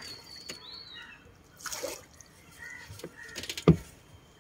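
Water splashing and dripping as a bamboo punting pole is worked in and out of the water, with one sharp knock, the loudest sound, a little after three and a half seconds in.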